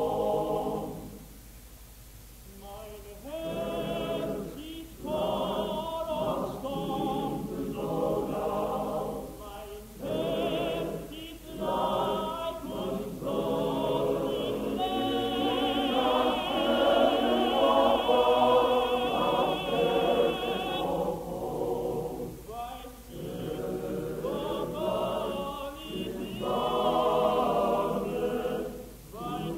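Male choir singing unaccompanied in short phrases with brief breaks, swelling to a long held chord about halfway through.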